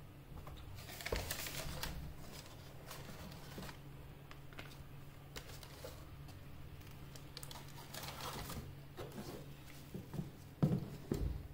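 Hands unpacking a cardboard shoebox: tissue paper rustling and black rubber-soled sandals being handled, with scattered light clicks and taps. Two louder soft thumps come near the end.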